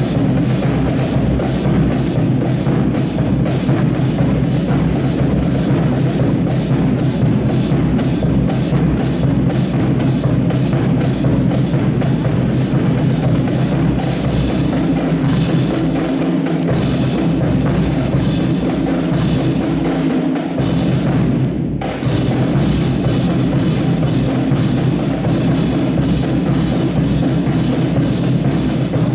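Recorded music with a steady drum-kit beat, about two to three strikes a second, playing loudly throughout; it drops out for a moment about two-thirds of the way through.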